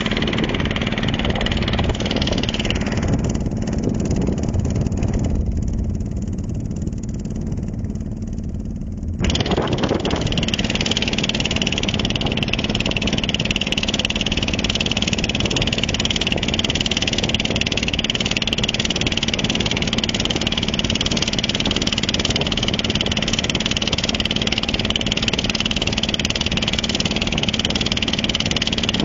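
Motorboat engine running steadily, heard from on board. The upper hiss drops away for a few seconds and then comes back suddenly about nine seconds in.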